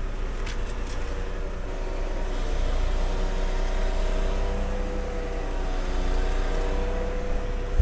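Timber truck's diesel engine running with the loader crane's hydraulics engaged: a steady drone with a whining tone that rises a little partway through, as the crane is eased into position.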